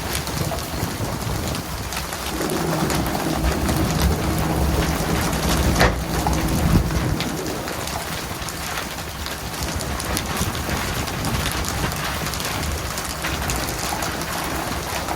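Steady hiss of water pattering on a surface over a low engine hum, with a couple of sharp knocks about six and seven seconds in.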